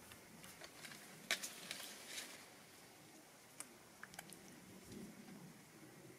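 Faint scattered clicks and rustles from a baby monkey moving about on a tree branch, most of them in a short cluster about a second in and a few more a couple of seconds later.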